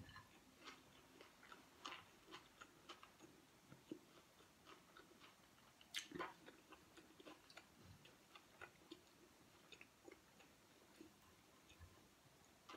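Faint eating sounds of a person eating rice and beef by hand: quiet chewing with scattered small mouth and finger-on-plate clicks, and one sharper click about six seconds in.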